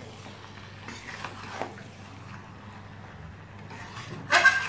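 Metal spatula stirring mutton and potato pieces in a metal kadhai, with a few soft scrapes and one loud clang of metal on the pan near the end. A low steady hum runs underneath.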